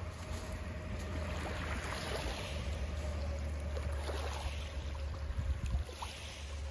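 Small waves lapping on a pebble shore under a steady low wind rumble on the microphone, with a few faint crunches of boots on the stones.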